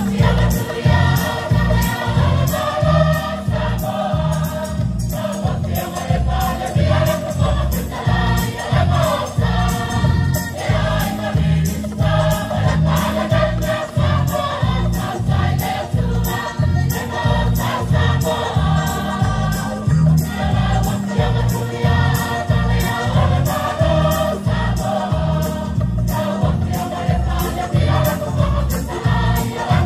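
Large seated group choir singing a Samoan traditional song (pese faaleaganuu) together, over a steady, evenly repeating beat.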